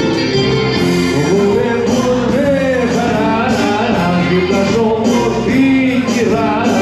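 Live Greek band music: bouzouki and other plucked strings playing, with a voice singing a wavering melody over them.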